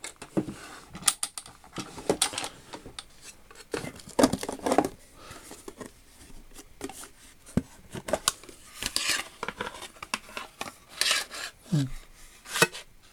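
Small metal tool pieces clinking, clicking and scraping as they are handled, with irregular taps and rattles.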